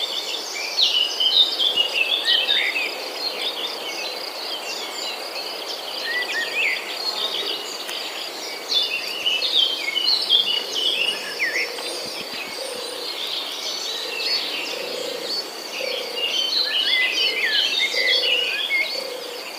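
A flock of small birds chirping and calling all at once in a dense, continuous chatter of short high chirps, with a steady high insect-like buzz underneath.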